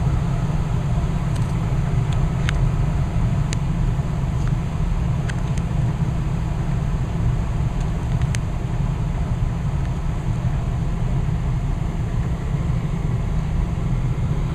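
Westinghouse gas furnace's indoor blower fan running on at its slower speed after the burners have shut off, a steady low hum ahead of shutdown. A few faint ticks are heard over it.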